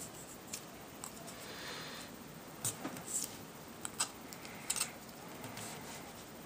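Paracord being worked through a plastic buckle by hand: faint rustling with a scattering of light clicks and taps, most of them in the middle of the stretch.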